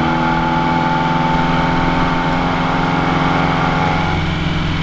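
1969 Reliant Regal three-wheeler's four-cylinder engine running steadily at about 30 mph, heard from inside the cabin, where it is quite noisy. The note changes about four seconds in.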